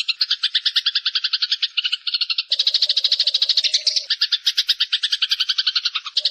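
Eurasian tree sparrows giving fast, harsh chattering calls, the agitated chatter of sparrows fighting: a rapid train of sharp notes, about ten or more a second. It turns denser and louder about two and a half seconds in.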